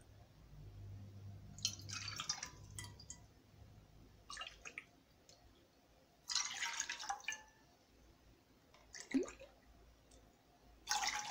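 Water poured from a cup into an aluminium cooking pot, splashing in several short pours about two seconds apart.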